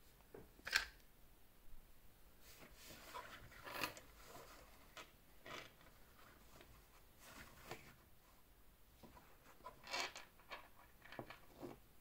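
Faint handling sounds of a Casio Duro MDV-107 dive watch and its rubber strap being turned in the hands and set on a foam pillow. Scattered soft clicks and rustles, the loudest about a second in and a small cluster about ten seconds in.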